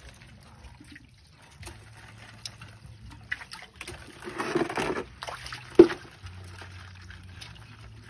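Hands moving and splashing in shallow pond water while groping for crabs, with a louder spell of sloshing about four to five seconds in and one sharp knock about six seconds in.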